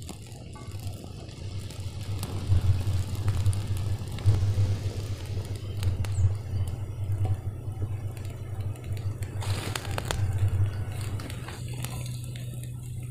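Kitchen work at a stove: a steady low rumble that swells and fades, with scattered light clicks and knocks.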